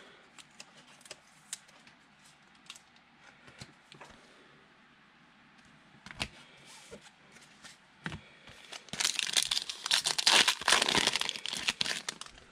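A trading card pack's wrapper being torn open and crinkled, loud for a couple of seconds near the end, after light clicks and taps of cards being handled.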